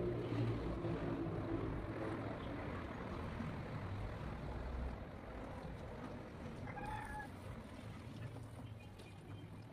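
Water from a hose spraying during a car wash: a steady hiss that fades after about five seconds, with a brief high call about seven seconds in.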